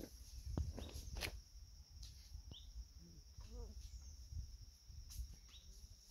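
Rural outdoor ambience: steady high insect chirring under a low rumble, with scattered knocks (the loudest about a second in) and a faint distant call a little past the middle.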